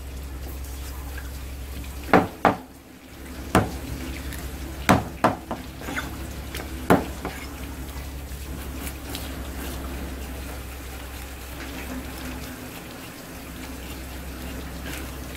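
Tap water running steadily onto a plastic cutting board while a sea bass is being cleaned, with about six sharp knocks between two and seven seconds in.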